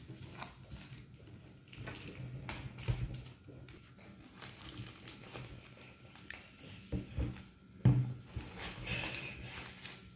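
Clear plastic shrink wrap crinkling and rustling as it is pulled off a four-pack of juice cartons, with a few knocks of the cartons on a table, the loudest about three-quarters of the way through.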